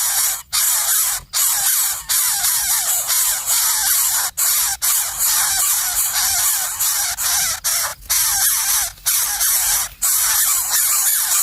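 Nestling birds begging in the nest, a dense run of harsh, raspy hissing calls overlapping one another, broken off abruptly several times for a split second.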